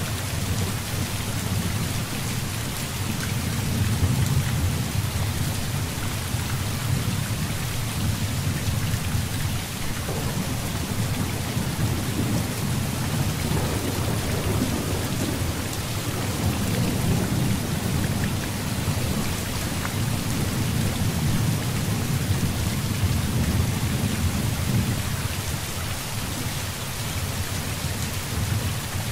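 Heavy rain falling steadily with rolling thunder. Low rumbles swell and fade several times under the even hiss of the rain.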